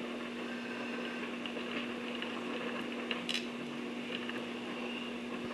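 A steady low hum under a quiet, even background hiss, with a few faint light clicks of small objects being handled.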